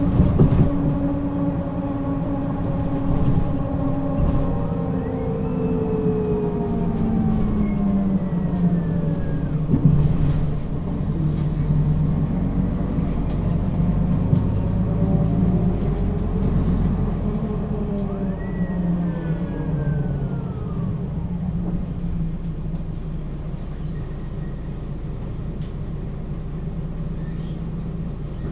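Mercedes-Benz O 530 G Citaro articulated bus heard from on board, its engine and Voith automatic gearbox running as it drives. The engine note falls twice, with a higher whine rising and falling over it each time, and there is a knock about ten seconds in.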